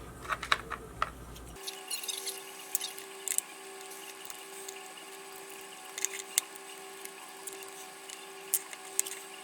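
Small, light clicks and ticks of tools working on tiny screws and parts of an action camera being disassembled, over a steady faint electrical hum that starts about a second and a half in.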